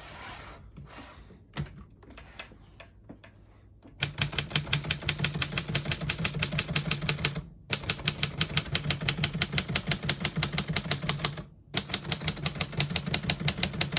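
1934 Corona Silent portable typewriter being typed on: a few soft clicks, then from about four seconds in long runs of rapid, even keystrokes, broken by two short pauses. This model is a little more muffled than the average typewriter of its day, though not silent.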